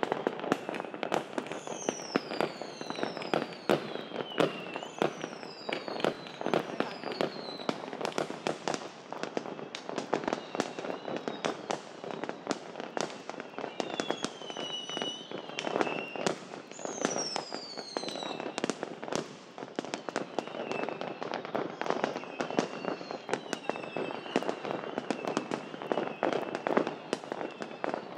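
Many fireworks going off together in a dense, continuous stream of bangs and crackles. Every few seconds a whistling firework adds a falling whistle over the bangs.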